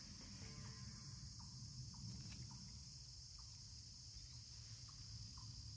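Faint, steady high-pitched chorus of insects in summer woods, with soft short chirps every half second or so.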